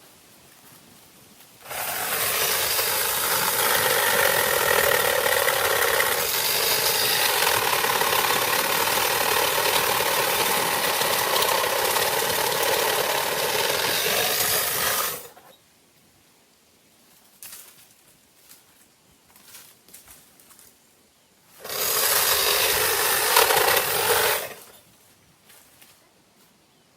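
A motor-driven tree-trimming power tool starts abruptly and runs for about thirteen seconds, its pitch shifting as it cuts into branches. It stops, then runs again for about three seconds near the end.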